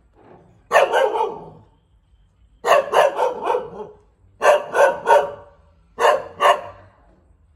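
Thai Bangkaew dog barking in four bursts of two to five quick barks each, with short pauses between the bursts.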